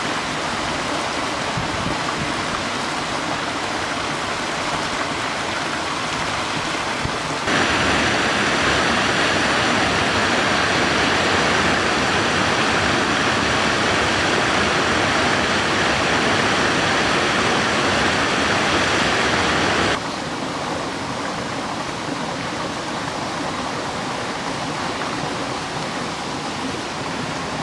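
Small forest stream cascading over rocks, a steady rushing of water. About seven seconds in it suddenly becomes louder and brighter, then drops back to the softer rush after about twelve seconds.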